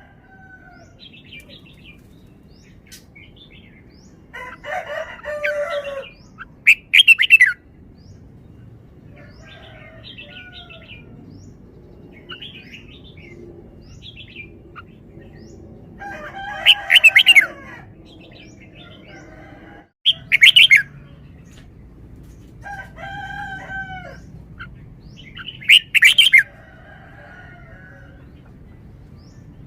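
Caged red-whiskered bulbul singing: about six short, loud bursts of quick whistled notes, a few seconds apart, with softer calls between them.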